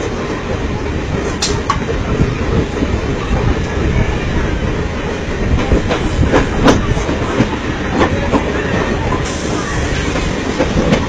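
Local train running at speed, heard from its open doorway: a steady loud rumble and rattle of the coaches, with scattered sharp clacks.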